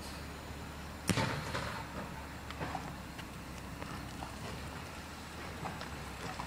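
A sharp knock about a second in, then scattered light clicks over a steady low rumble from a moving handheld camera, with a garbage truck running in the distance.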